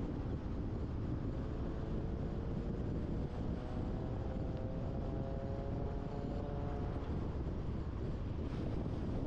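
Car driving at speed: steady low road and tyre rumble with wind noise, and a faint whine that slowly rises in pitch through the middle.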